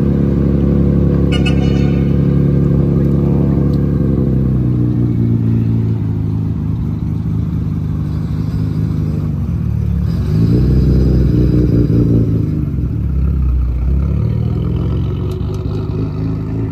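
Modified Nissan Skyline R32's engine and exhaust, running steadily as the car rolls out, then revving up and getting louder about ten seconds in as it pulls away, before settling back to a lower steady note.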